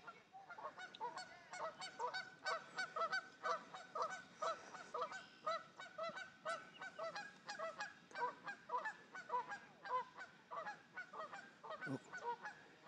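Geese honking over and over, about two or three short honks a second, several birds calling at once.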